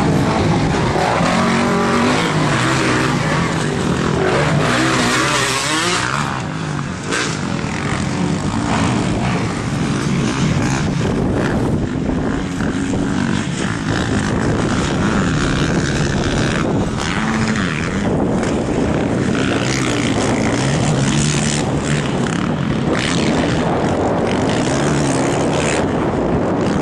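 Several motocross dirt bike engines racing, revving up and down again and again as the riders accelerate and back off around the track and over the jumps.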